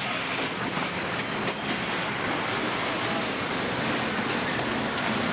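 Steady din of car assembly line machinery, an even mechanical noise with a few faint knocks.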